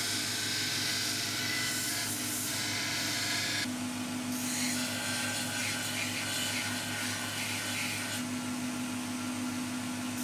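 Belt grinder running steadily, with the hiss of a steel knife being ground against the abrasive belt. The sound changes abruptly about a third of the way in.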